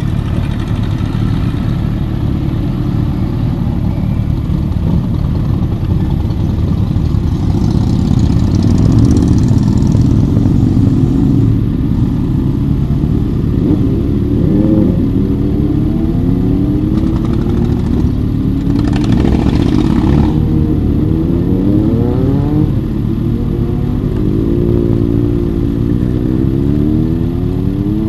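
A steady stream of motorcycles, a mix of cruisers and sport bikes, riding past one after another. Their engines rev up as each pulls away, so rising pitches overlap on a constant rumble.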